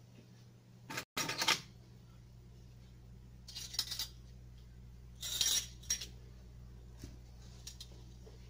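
Kitchen utensils clinking and scraping against dishes in three short bursts, with a few light clicks near the end.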